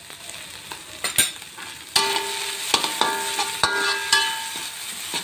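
Sardine and egg filling frying in a wok with a light sizzle. From about two seconds in, a metal spatula stirs and scrapes it, and each stroke knocks the pan so it rings at the same few tones.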